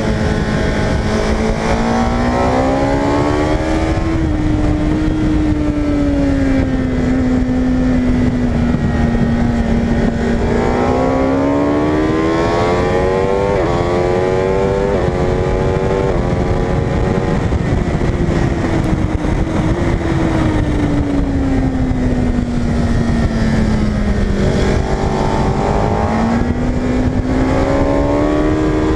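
Onboard sound of a superbike engine at speed on a race track. The engine note rises under acceleration and falls away when slowing for corners, several times over, with quick upshifts about halfway through. Wind rush runs underneath.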